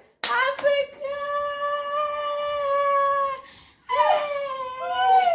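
A woman belting a long, steady sung note for about three seconds, then a shorter sliding phrase. The singing is deliberately terrible.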